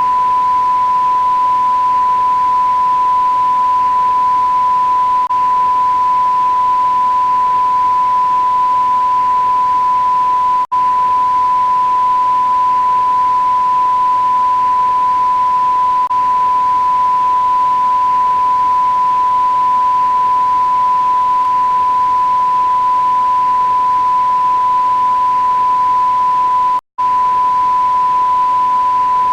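TV blackout tone: a single steady, high-pitched pure test tone of a broadcast off the air, over a faint hiss. It drops out for an instant twice, about eleven and twenty-seven seconds in.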